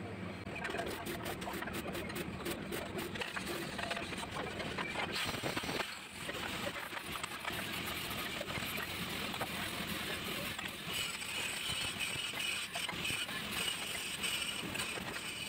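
Steady welding-workshop background noise: a constant hiss with scattered light clicks and taps in the first few seconds, and a higher hiss joining about eleven seconds in.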